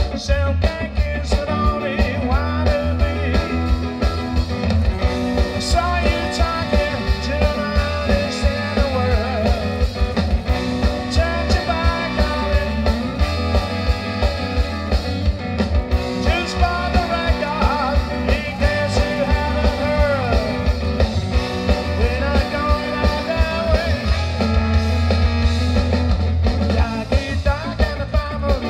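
Live ska band playing: trombone, tenor saxophone and trumpet carry the melody over electric guitar, bass guitar and drums with a steady beat.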